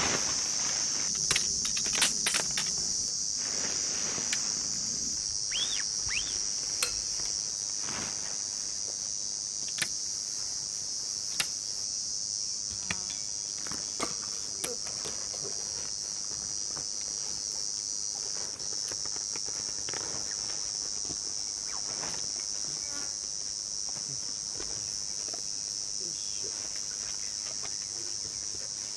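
Steady high-pitched insect chorus, with scattered sharp clicks and knocks, most of them in the first few seconds.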